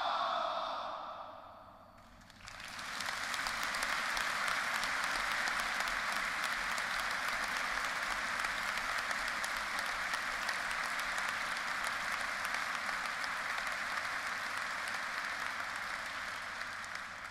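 Band members' drawn-out massed shout of "Hurrah!" fading over the first two seconds, then a large audience applauding steadily, thinning out near the end.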